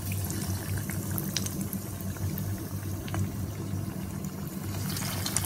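Hot oil sizzling in a frying pan as breadcrumb-coated vegetable cutlets are laid in one after another, with scattered sharp pops over a low steady hum.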